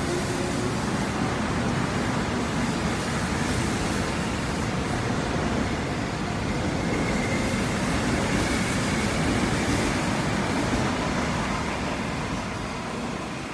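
Seoul metro electric train pulling past and away from the platform: a steady rush of wheels on rail and moving cars, with a faint rising whine from its VVVF inverter traction drive. The noise fades near the end as the last car draws away.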